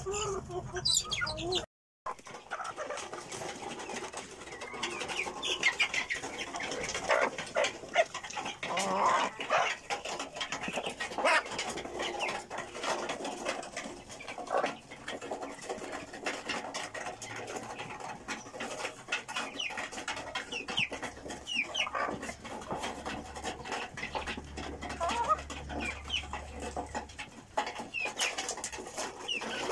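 A flock of domestic hens clucking and making short calls, with frequent small taps and clicks among them.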